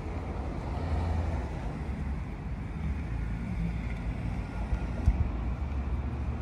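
Steady low outdoor rumble with distant traffic, and one short knock about five seconds in.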